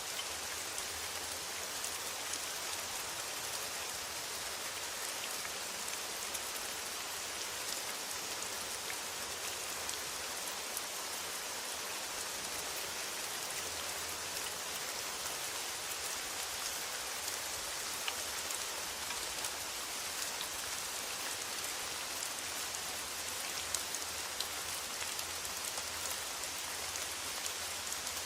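Steady rain on a metal roof: an even hiss with scattered ticks of single drops.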